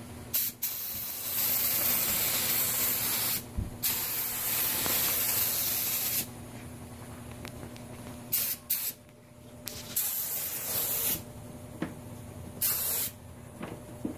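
Gravity-feed spray gun on compressed air spraying a second coat of paint, hissing in separate trigger pulls: two long passes of a few seconds each in the first half, then several shorter bursts.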